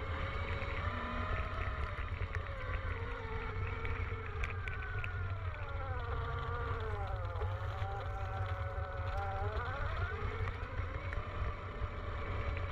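Electric dirt bike's motor whining as it is ridden, the pitch rising and falling with speed and dipping sharply twice in the second half before climbing again, over a steady low rumble.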